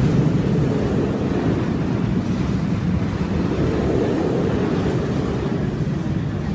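Wind buffeting the microphone: a steady low rumbling noise with no distinct events.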